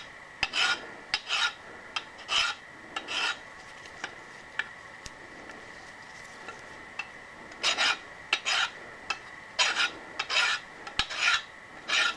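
Hand file rasping across a metal edge in short strokes, mostly in pairs, knocking a burr off a machined part. There is a pause of a few seconds in the middle before the strokes start again.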